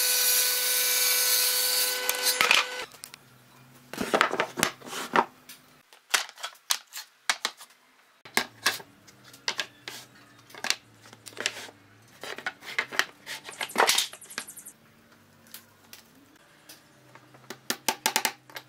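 Jointer-planer running loudly with a steady whine, cutting off about two and a half seconds in. Then a run of sharp wooden knocks and clatters, some in quick clusters, as pine boards are set down and shifted on a workbench.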